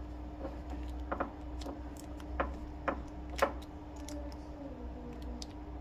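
A string of small clicks and taps from plastic cable connectors and adapters being handled and set down, the loudest three coming between about two and a half and three and a half seconds in, over a steady electrical hum.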